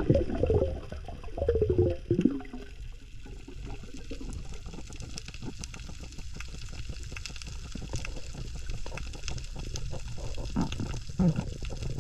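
Underwater sound: a muffled gurgle of water in the first two seconds, then a low steady wash of water with a fine, constant crackle of tiny clicks.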